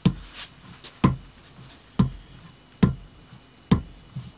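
A chisel being stropped on the bare, uncompounded leather side of a wood-backed strop: a sharp wooden knock about once a second, five in all, as each stroke is made, with lighter ticks between.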